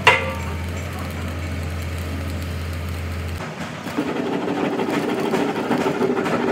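Metal-working machinery: a sharp clang with a brief ring over a steady low hum. About three and a half seconds in, the hum stops and a louder, rougher machine sound takes over.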